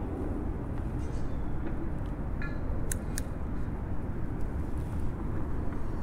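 Steady low rumble of distant motor traffic, with a short chirp and then two sharp clicks about halfway through.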